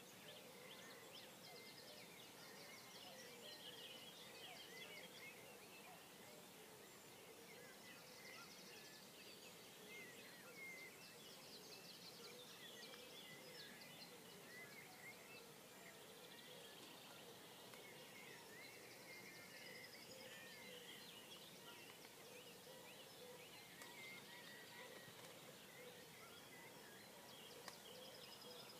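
Faint dawn chorus of many songbirds, with overlapping high chirps, twitters and quick trills over a quiet background hiss.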